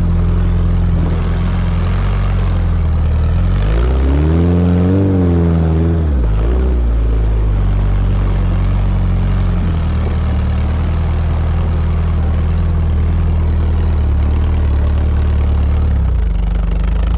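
Sporting trials car's engine running at steady low revs as the car climbs a grassy slope, with a brief rise and fall in revs about four seconds in.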